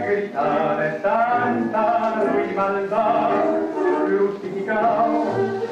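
Tango music with a voice singing a melody over the accompaniment.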